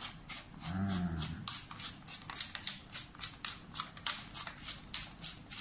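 Handheld pepper mill being twisted to grind black peppercorns, a quick even run of crunching clicks, about four a second.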